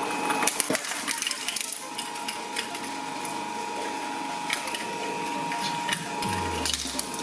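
Small shredder's motor running with a steady whine while hollow plastic ping-pong balls bounce and click against its turning steel blades without being caught.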